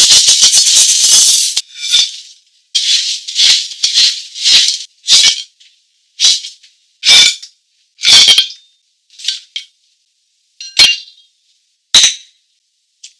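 Coarse sea salt poured into a clay pot, a dense grainy rattle lasting about a second and a half. It is followed by a series of short crunchy rattles as shrimp are laid onto the salt bed, and a brief clink near the end.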